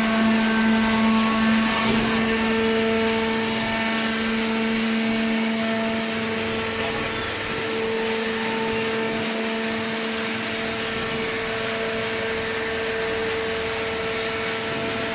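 A machine running steadily, a constant hum with a steady whine over it and no change in speed.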